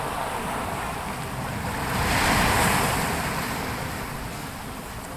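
Sea waves breaking and washing up a pebble-strewn beach, swelling to a peak about two seconds in and then easing back.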